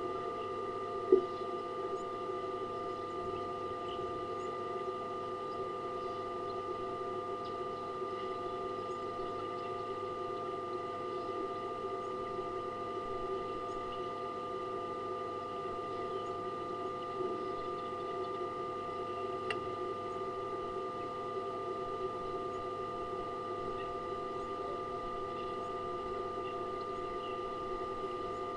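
Steady electrical hum made of several fixed tones over a low hiss, with one sharp click about a second in.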